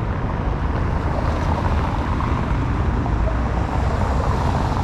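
Steady outdoor noise: an even low rumble with a hiss over it, no distinct events.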